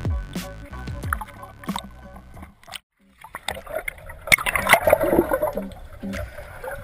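Music notes die away, with a short break about three seconds in. Then water gurgles and splashes against the camera, and a new music beat comes in near the end.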